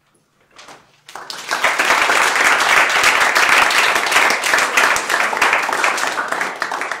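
Audience applauding, starting about a second in, steady for several seconds and fading near the end.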